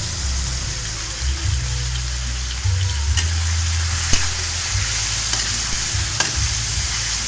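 Chicken pieces sizzling in a wok as a metal ladle stirs them, with a few sharp knocks of the ladle against the pan, the loudest about four seconds in.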